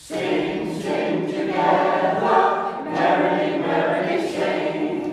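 A group of older men and women singing a song together in phrases a second or so long, with short breaks between them.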